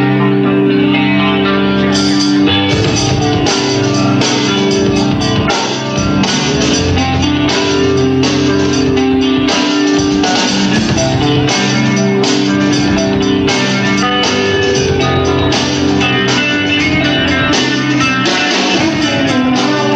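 Live rock band playing an instrumental passage: electric guitar chords, with drums coming in about two seconds in.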